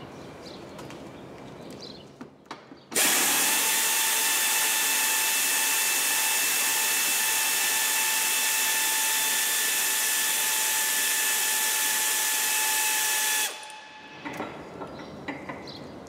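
Pneumatic air ratchet running flat out for about ten seconds, spinning out the bumper's lower screws: a loud hiss with a steady whine that starts abruptly about three seconds in and cuts off near the end. Light clicks and handling knocks come before and after it.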